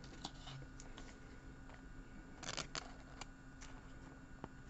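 Faint scattered ticks and light rustles of a glossy trading card being handled between fingers, with a brief cluster of clicks about two and a half seconds in, over a faint steady hum.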